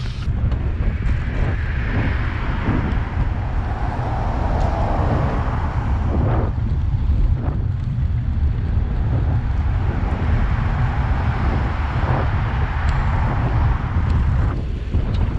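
Wind buffeting the microphone of a camera on a moving bicycle, a steady loud rumble with a noisy hiss over it.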